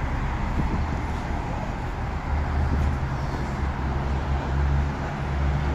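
Vehicle engine running steadily while under way, with road and wind noise over it; the low engine note grows stronger about two seconds in.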